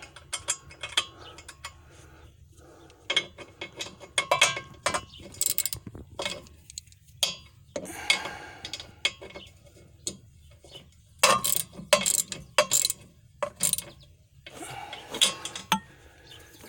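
Half-inch hand ratchet clicking as it turns a shock-mount nut, in short runs of clicks with pauses between strokes.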